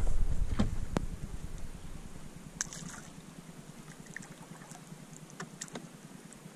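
Low rumbling knocks of movement in a plastic sit-on-top kayak, fading over the first two seconds. A handful of sharp clicks and taps follow, over the calm hush of open water.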